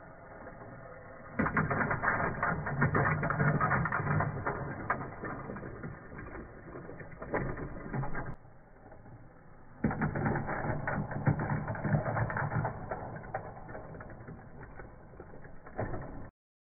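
Motorized Lego train running on plastic Lego track, a steady motor hum under a fast, dense clatter of clicks. It runs loud for about seven seconds, drops quieter for a second or so, then is loud again until it cuts off suddenly near the end.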